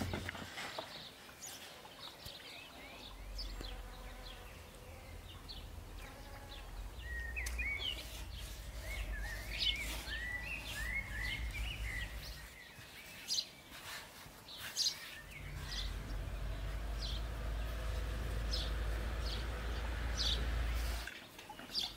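Small birds chirping and twittering in quick short calls, over a low rumble. Two sharp knocks come about two thirds of the way through.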